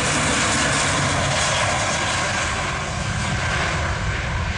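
Aircraft engine noise: a steady, loud rush that begins to fade over the last second or so.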